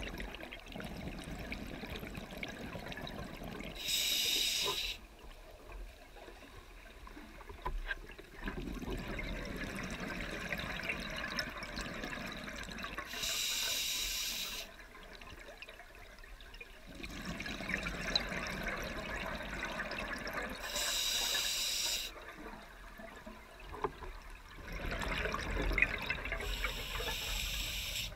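Scuba diver breathing through a regulator underwater: four short, high hissing inhales several seconds apart, each followed by a few seconds of bubbling, gurgling exhale.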